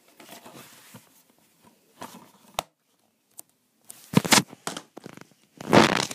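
Handling noise: a plastic DVD case being moved over a tile floor and the camera being shifted, with faint scrapes and a sharp click, then louder rustling scrapes about four seconds in and again near the end.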